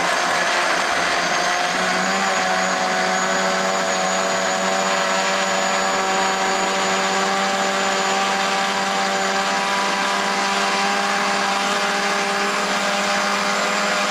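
Countertop blender running steadily, puréeing a thick mix of tofu and edamame into a smooth paste. Its motor whine rises slightly in pitch over the first couple of seconds, then holds steady.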